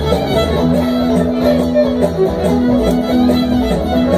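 Live acoustic string band playing: an upright bass pulsing on the beat and an acoustic guitar under a long held note.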